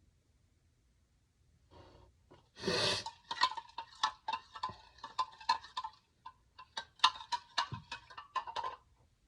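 A person sneezing: a short intake of breath, one loud sneeze about two and a half seconds in, then a rapid run of short, sharp sneezes that goes on for about six seconds and stops suddenly.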